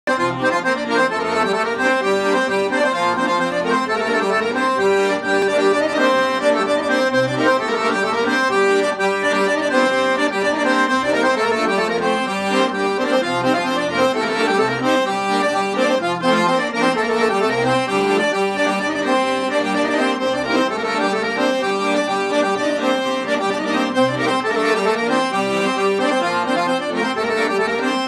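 Solo accordion playing a traditional-style melody, its notes changing steadily over a constant loud level.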